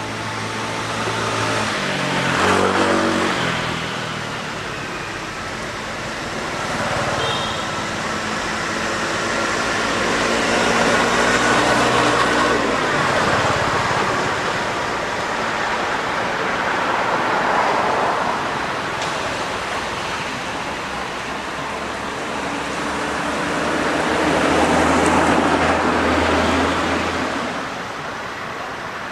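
Road traffic: motor vehicles driving past one after another, their engine sound swelling and fading about four times over a steady traffic hum.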